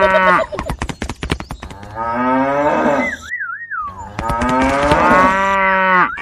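Cattle mooing: three long, drawn-out moos about two seconds apart. A run of quick clattering clicks follows the first moo, and a short warbling whistle comes between the second and third.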